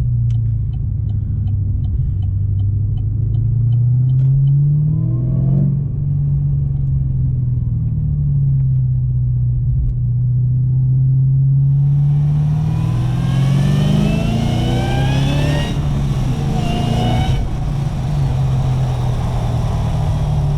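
Supercharged 6.2 L LSA V8 of an HSV VF Commodore accelerating. The engine note rises briefly about four seconds in, then climbs in a longer pull from about twelve seconds with a rising supercharger whine, broken by a gear change and rising again. A turn signal ticks about three times a second in the first few seconds.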